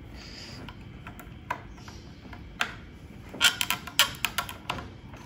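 Sharp clicks and light knocks of a USB cable plug being handled and pushed into the Arduino's USB port on the CNC controller box, a few single clicks followed by a quick cluster of clicks near the end.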